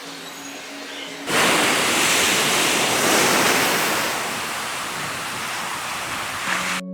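Steady rush of water noise that starts suddenly about a second in and eases slightly later, after a quieter first second with a low steady hum.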